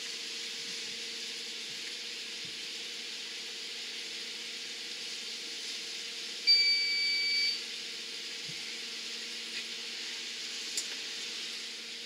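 Newly installed 1 HP submersible sump pump running with a steady low hum over an even hiss of water being pumped out of the pit; it runs pretty quiet. About six and a half seconds in, a single high electronic beep sounds for about a second.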